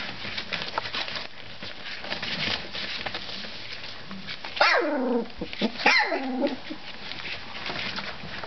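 Three-week-old collie puppies at play: two high yelps, each falling sharply in pitch, about a second apart a little past the middle, over continual scratching and rustling of small paws on newspaper.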